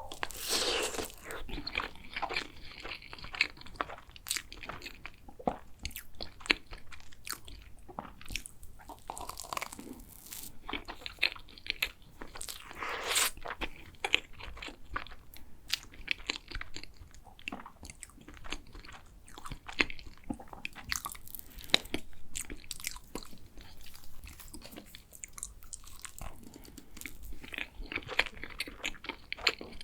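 Close-miked eating sounds: a person biting into and chewing tiramisu cake, with many short sharp clicks and wet mouth noises.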